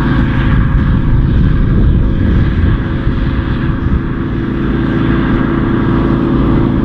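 New Holland TX63 combine harvester's diesel engine running steadily close by, a constant low hum and rumble, as the combine comes in to unload its grain.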